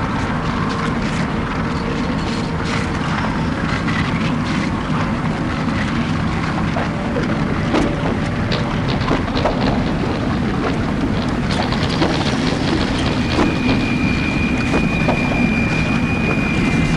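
Death-industrial drone music: a dense, steady wall of low droning noise with scattered clicks and scrapes. About thirteen seconds in, a thin, high, steady tone joins it.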